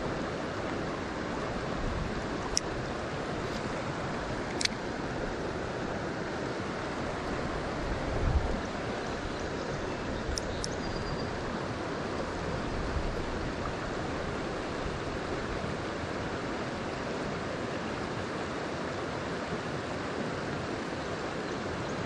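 Steady rush of shallow creek water running over rocks, with a few faint clicks and a short low thump about eight seconds in.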